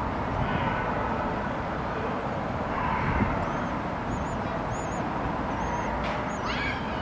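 Steady outdoor city background noise, like distant traffic. From about the middle on, faint, thin, high bird chirps repeat several times.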